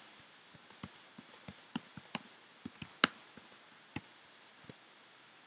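Typing on a computer keyboard: an irregular run of light key clicks that stops shortly before the end.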